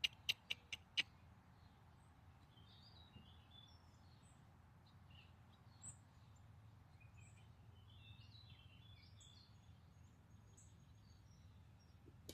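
Faint, scattered bird chirps over a low steady hum, with four sharp clicks in the first second.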